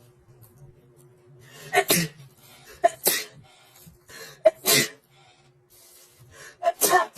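A young woman sneezing four times in a row: wet, allergic sneezes, each a short sharp burst, coming about a second or two apart.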